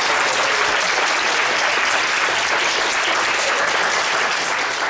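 Crowd applauding steadily, starting to fade near the end.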